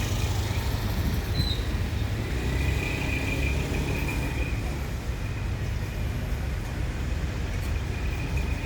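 Steady low rumble of vehicle engines and traffic, with a faint high whine through the middle.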